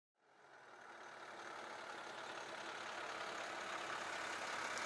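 School bus engine idling steadily, fading in from silence over the first second or two.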